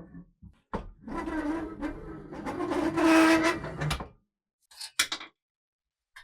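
Rusty antique french fry cutter being handled: a few seconds of metal scraping with a squeak in it, then a single sharp click about five seconds in.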